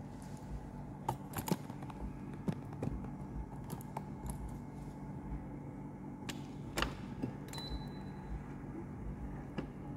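Signora La Forte stand mixer running with a steady low hum as its dough hook kneads a heavy bread dough toward the elastic windowpane stage. Irregular light clicks and knocks come throughout, with a sharper one about seven seconds in.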